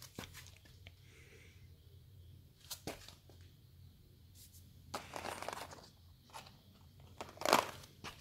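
Dry crackling and crinkling rustles: a few sharp snaps early on, a longer crinkly rustle about five seconds in and a louder one near the end, over a faint low hum.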